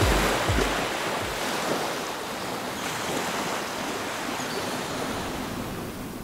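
Sea surf washing in a steady hiss that slowly fades, with two low thumps in the first second.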